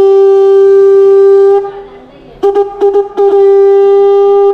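Conch shell (shankh) blown with a steady, loud horn-like note. The note is held, breaks off for under a second, returns as a few short stuttering blasts, and then settles into another long held note.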